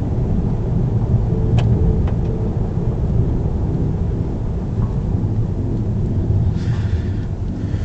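Car driving along a narrow country lane, heard from inside the cabin: steady engine and tyre rumble.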